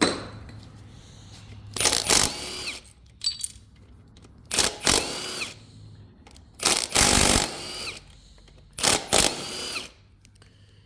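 Cordless power tool run in four short bursts, its motor whining up and dropping off each time, loosening bolts on the engine.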